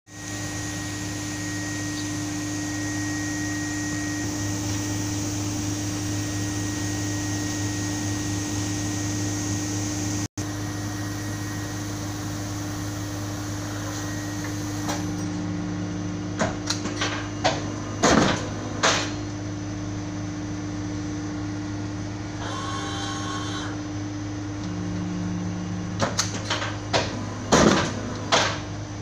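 Perfecta 115 guillotine paper cutter running with a steady hum. From about halfway, a series of sharp clacks and knocks comes as it is worked, with a brief buzz between them.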